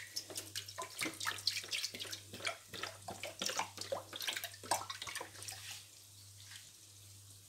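Milk pouring from a carton into a stainless steel pan, splashing into the milk already there; the pouring grows fainter about six seconds in.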